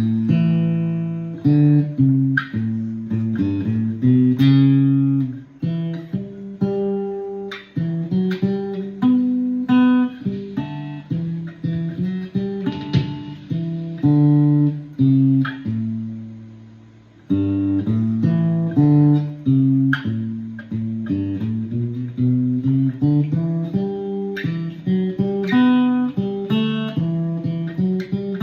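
Ovation Koa octave mandolin tuned in fifths, picked through an L.R.Baggs Para DI preamp, playing a melody of plucked notes over ringing lower strings. About halfway through, a note is left to ring out and fade before the playing picks up again.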